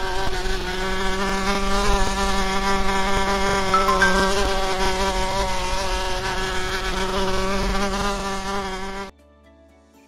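Wasps buzzing in a steady, dense drone that cuts off abruptly about nine seconds in.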